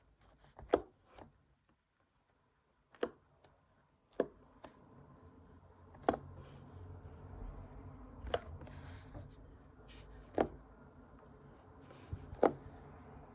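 Homemade slime squeezed and pressed close to the microphone for ASMR, giving sharp clicks about every two seconds; a faint steady low noise comes in about four seconds in. It is a slime that does not make the best noise, not stretchy or bubbly.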